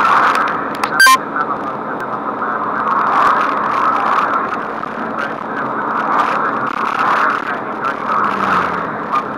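Engine and road noise inside a moving vehicle, a steady rushing with a low hum underneath. A short sharp click about a second in.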